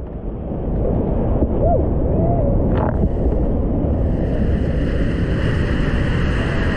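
Whitewater river rapids rushing around a kayaker's camera. For the first few seconds the sound is muffled, with the camera submerged in foam. About four seconds in it opens up into the full, bright hiss of fast-moving whitewater at a drop.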